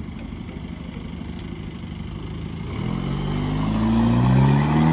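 Audi B7 A4 2.0T's turbocharged four-cylinder engine, fitted with a K04 turbo, idling and then revving up from a little under three seconds in, its pitch climbing slowly and its level rising.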